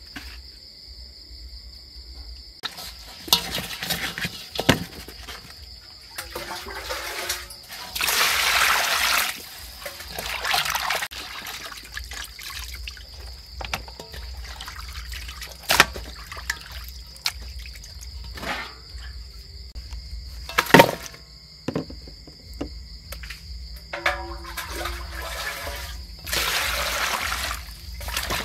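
Water sloshing and splashing in a stainless steel bowl as a whole raw chicken and its giblets are rubbed and washed by hand, with a couple of sharp knocks in the middle. Near the end water is poured into the bowl over lemongrass and chillies.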